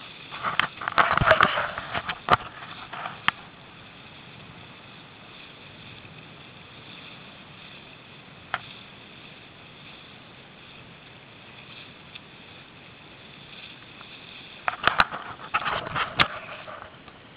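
Camera handling noise: rustling and sharp knocks as the camera rubs and bumps against a waterproof jacket, about a second in and again near the end. A steady hiss runs between.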